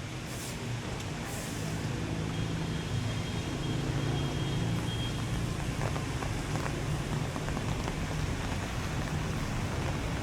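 Steady rain with the low hum of a motor vehicle's engine nearby, the hum growing louder about two seconds in.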